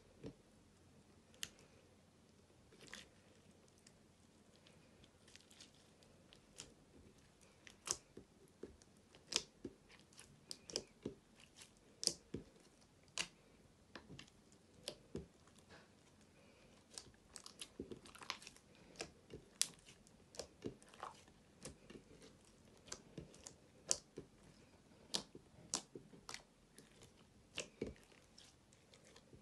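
Hands kneading and squeezing glittery clear slime in a glass dish: soft, sticky clicks and pops at irregular intervals, several a second at times, as the slime is pressed and pulled apart.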